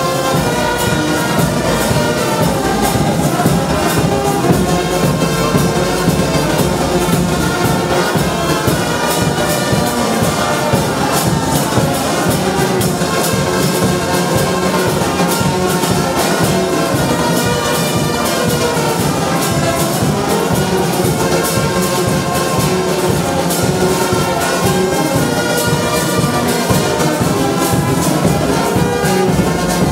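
Brass band of trumpets, tubas and sousaphones playing without a break at an even loudness.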